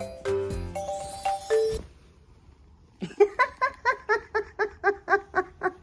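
A short bright jingle of struck, chime-like notes, then about a second of quiet, then a rapid run of laughter, an even 'ha-ha-ha' of about five pulses a second.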